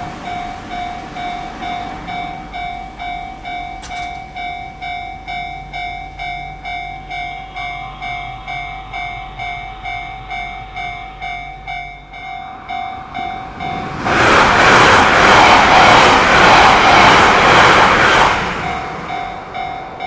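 Japanese level-crossing warning bell ringing as a fast, even repeating ding. About fourteen seconds in, a train passes over the crossing for about four seconds, loud enough to drown the bell, and then the bell carries on ringing.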